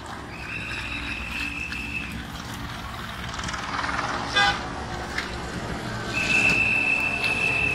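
Two long, steady whistle blasts, the second louder, with a short car-horn toot between them. Underneath is the engine rumble of race-convoy cars and motorcycles passing.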